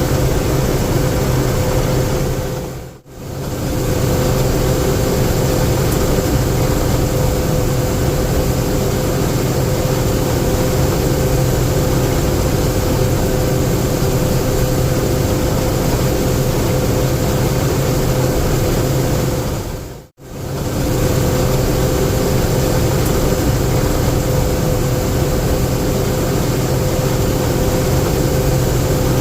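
A combine harvester running steadily under harvest load, a constant machine drone with a steady hum. The sound drops out briefly twice, about 3 seconds in and about 20 seconds in.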